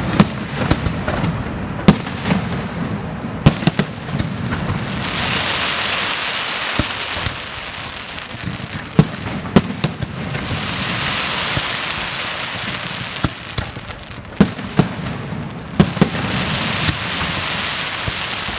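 Aerial fireworks display: many sharp bangs of bursting shells, with stretches of dense crackling hiss about five seconds in, again around ten to thirteen seconds, and near the end.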